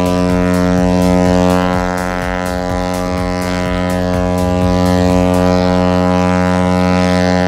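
Cruise ship Mein Schiff 6's horn sounding one long, deep, steady blast to signal departure, stopping near the end.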